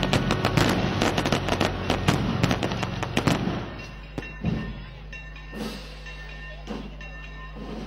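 Firework display going off in a rapid, dense barrage of crackles and bangs. It dies away after about three and a half seconds, leaving a few scattered thumps.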